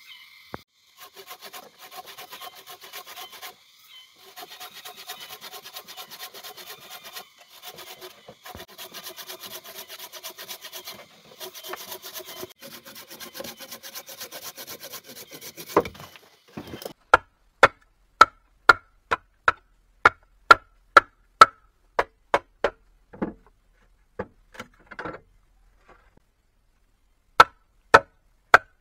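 A hand saw cutting through wood in fast, even strokes, in runs of a few seconds with short pauses. About halfway through the sawing stops, and loud, sharp chopping strikes on wood follow, about two a second at first, then scattered.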